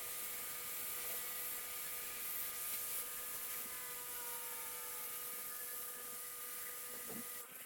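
Steady hiss of pressure-washer spray over paving, with a steady machine whine under it, cutting off abruptly near the end.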